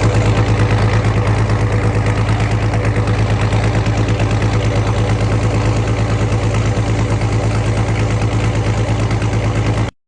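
International 986 tractor's naturally aspirated six-cylinder diesel idling steadily through a straight exhaust pipe, with an even low, pulsing note; the sound cuts off suddenly near the end.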